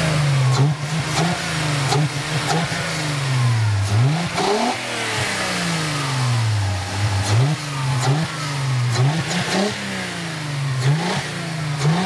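A Volkswagen Passat V6 engine being revved over and over, its intake and exhaust both heard: each rev rises sharply and then falls back slowly before the next throttle blip.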